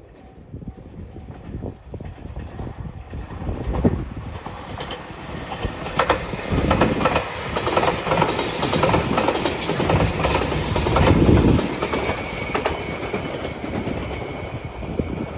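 Shiokaze limited express electric train passing close by at speed. The wheels clack over the rail joints as the rumble builds, is loudest through the middle of the pass, and eases slightly near the end.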